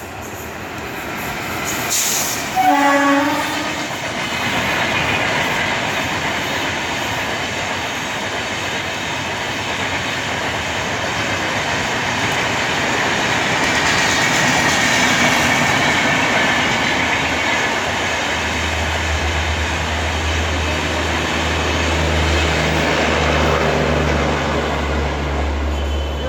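Indian train running by: a short horn blast about three seconds in, then a continuous rumble of the train on the rails, with a low steady hum joining about eighteen seconds in.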